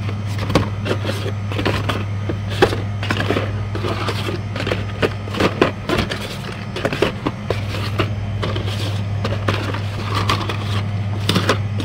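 Hot Wheels blister-pack cards being flipped through and knocked against each other and the cardboard display: a run of irregular clicks, clacks and crinkles of plastic and card. Under it, a refrigerator's steady low hum.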